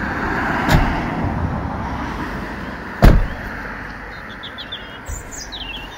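Kia Sedona's second-row seat being slid and latched: mechanical clunks over a rumbling slide, with a loud thud about three seconds in.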